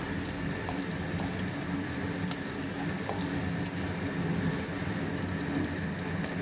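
Carrot strips and minced garlic sizzling in hot oil in a nonstick wok, stirred with a spatula that gives small scattered scraping ticks. A steady low hum runs underneath.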